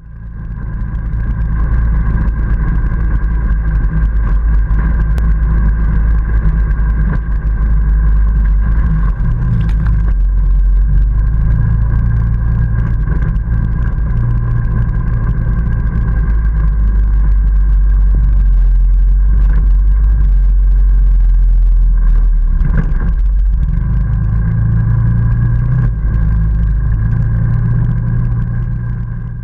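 ATV engine running steadily under way on a dirt trail, its note changing briefly a couple of times, around ten seconds in and again near twenty-three seconds.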